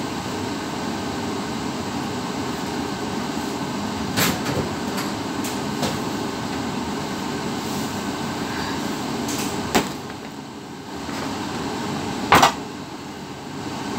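Steady machinery hum in a ship's galley, with a few knocks and clacks of kitchen work; the sharpest, a double clack, comes about twelve seconds in.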